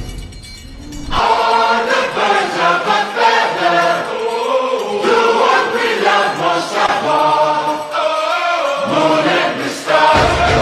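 Music with a choir singing in sustained, wavering chords, which begin about a second in. A heavy low drum-like sound comes back near the end.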